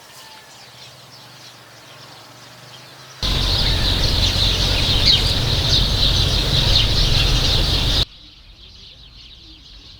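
Outdoor ambience with birds chirping, played as a microphone sound test and cut together from separate recordings. A faint, hissy stretch with a low hum gives way about three seconds in to a much louder stretch of dense high chirping, which cuts off abruptly about eight seconds in to a quieter ambience with the highest sounds missing.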